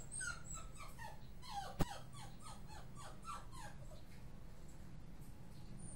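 A dog whining in a quick run of short, high, falling whimpers, about four a second, that die away after three or four seconds. A single sharp click about two seconds in.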